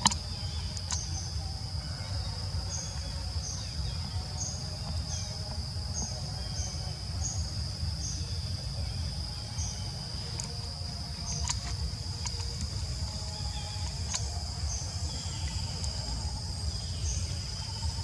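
Insects calling outdoors: a steady high-pitched trill, with short chirps repeating above it every half second or so, over a low steady rumble.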